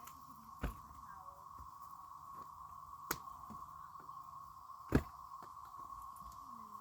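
A steady, even buzzing drone at one middle pitch runs on, with three sharp knocks at about a second in, three seconds in and five seconds in, the last the loudest.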